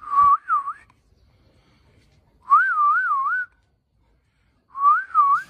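A person whistling to call a dog: three short warbling phrases with the pitch wavering up and down, the middle one the longest.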